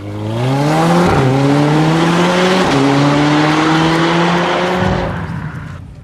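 Car engine accelerating hard through the gears: its pitch climbs, drops at two upshifts about one second and two and a half seconds in, then the sound fades out near the end.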